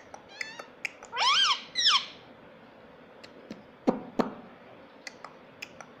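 Indian ringneck parakeet giving two loud squawks about a second in, their pitch rising then falling, after a few soft chirps; a lower, quieter call follows about four seconds in. Sharp clicks run between the calls as its beak taps against a small mirror.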